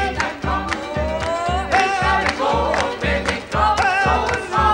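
Upbeat gospel-style song: a choir of voices singing over a steady bass beat about two to the second, with a rising glide in the melody about a second in.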